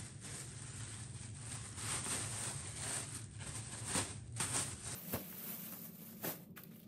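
Black plastic garbage bag rustling and crinkling as it is handled, pulled and shaken out.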